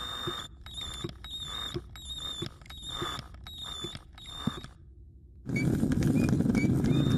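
Squeaking metal mechanism, a short high squeak with a knock repeating about every two-thirds of a second. About five and a half seconds in, a loud rattling rumble sets in and carries on, with the squeaks still above it.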